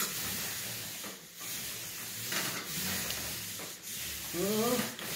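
Long-poled paint roller, fed from a pumped backpack paint tank, rolling up and down a wall: a steady hissing rub, with short breaks between strokes.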